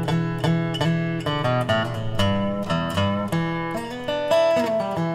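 Background music of plucked acoustic guitar, picking a run of single notes, about two or three a second, over a low ringing chord.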